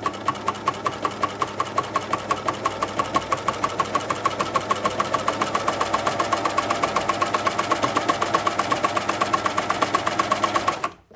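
Baby Lock Flatlock coverstitch machine running steadily at sewing speed, with a fast, even tick of each needle stroke, as it stitches 18 mm three-fold binding through a binder attachment onto thick sweatshirt-fleece knit. It stops near the end.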